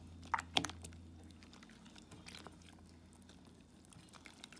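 Silicone spatula stirring flour into thin date-jaggery syrup in a stainless steel pot: soft, wet mixing and scraping with a few sharp clicks, the loudest two about half a second in.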